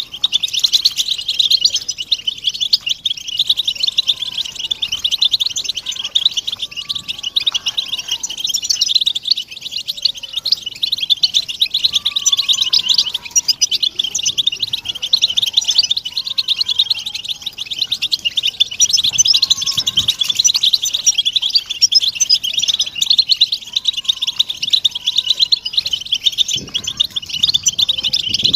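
A flock of European goldfinches twittering and calling together: a dense, unbroken chatter of quick, high notes. These are the flock's mating and readiness calls, played to stir male goldfinches into song.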